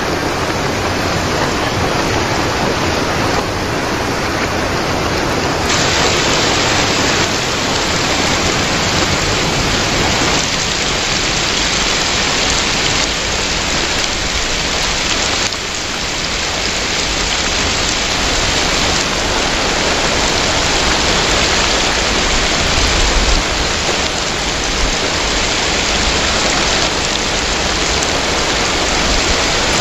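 Heavy rain pouring steadily and splashing onto a wet surface and shallow water, a dense, even hiss of countless drops.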